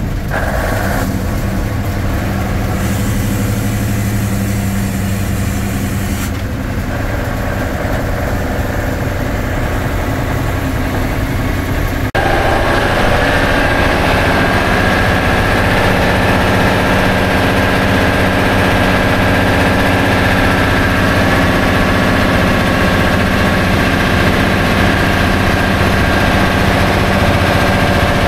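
Škoda RTO fire truck's six-cylinder diesel engine running while the truck drives, heard from inside the cab. About twelve seconds in the sound abruptly gets louder, with a steady whine that rises slightly and then holds.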